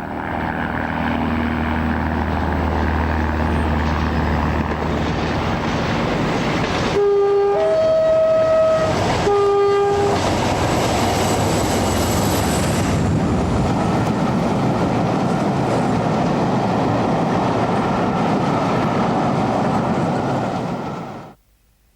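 Class 47 diesel locomotive passing with its Pullman coaches. A low engine hum is heard at first, then about seven seconds in it sounds its two-tone horn: low, high, low. The steady rumble of the train running by follows and cuts off abruptly near the end.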